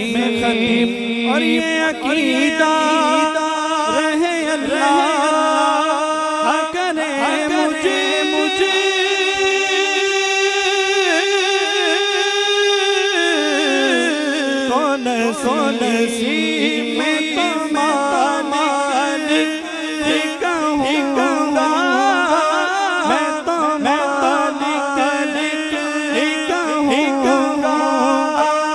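A man singing a naat (Urdu devotional song) into a microphone. About eight seconds in he holds one long note for several seconds, then glides down into shorter, ornamented phrases.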